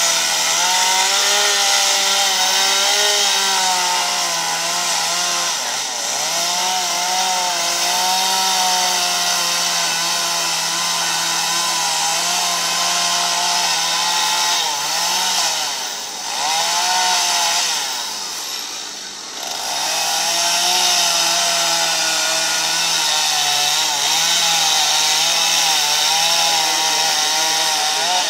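Chainsaw running at high revs as it cuts into wood to carve a sculpture. The engine note dips and picks up again several times as the throttle eases off, with the longest lull from about sixteen to nineteen seconds in.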